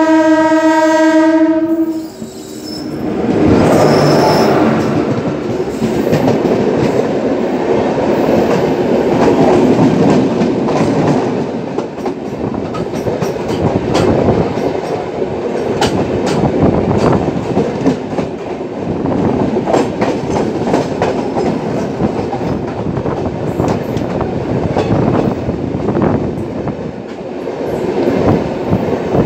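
An Indian Railways electric locomotive's horn sounds one steady blast for about two seconds. Then an oncoming passenger train passes close alongside at speed: a continuous rush of wheels and air with fast clickety-clack of wheels over rail joints, heard through the open window of a moving coach.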